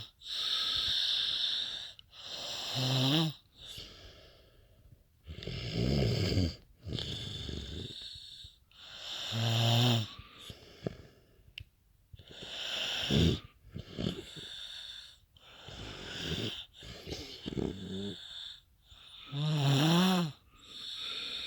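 Snoring: six loud, rattling snores about every three to four seconds, with hissing breaths in between.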